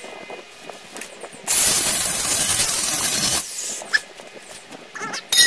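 Brushless cordless angle grinder (DeWalt DCG414) with a cut-off wheel biting into metal: a loud, hissing cut of about two seconds that stops abruptly. Near the end comes a short, sharp metallic clink.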